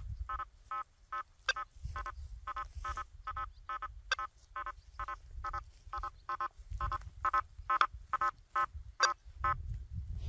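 Quest V80 metal detector giving short beeps of one steady pitch, about two to three a second, as its target responses while the 9-inch coil is swept over a nailboard. A few sharp clicks stand out among the beeps, with a low rumble underneath.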